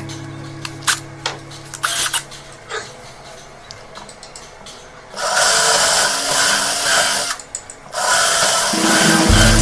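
A handheld power tool, such as a drill, running in two bursts of a couple of seconds each, the first about five seconds in and the second about eight seconds in, after a few light knocks and clicks of workshop handling.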